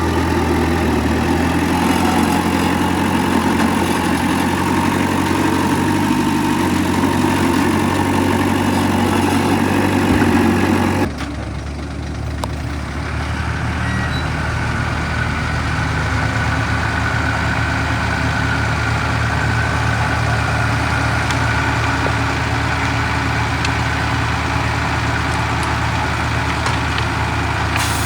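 Heavy diesel engines of earthmoving machinery running steadily. About eleven seconds in the sound drops abruptly and changes to a different, steady engine note.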